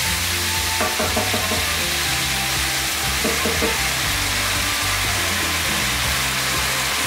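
Blended tomato-pepper sauce sizzling as it fries in hot oil with onions in a steel pan. A wooden spoon stirs and scrapes the pan, in short strokes about a second in and again around three and a half seconds in.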